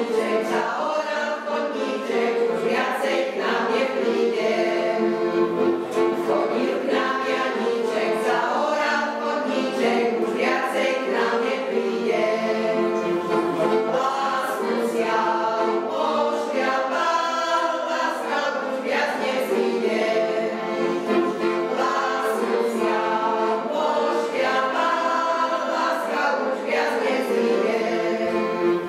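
Folk choir singing a Slovak folk song together.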